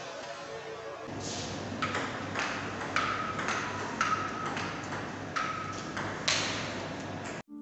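Table tennis rally: a plastic ball clicking off paddles and bouncing on the table, about two hits a second, some bounces ringing with a short ping. The hits start about a second in, and the sound cuts out just before the end.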